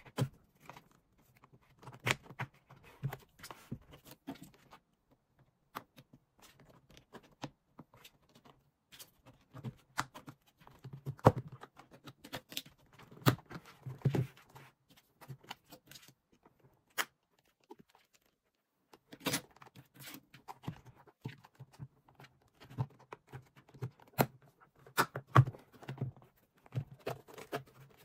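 Irregular plastic clicks, scrapes and knocks as the red protective case frame of a LAUNCH X431 scan tablet is pried loose with a plastic pry tool and worked off by hand. There is a quiet pause of about two seconds past the middle.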